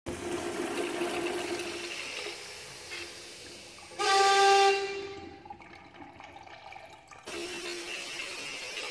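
Urinal's chrome manual flush valve flushing: rushing water with a steady hum, then about four seconds in a sudden loud horn-like honk that lasts about a second and fades away. Near the end the flush starts again, slowed down to 0.3x speed.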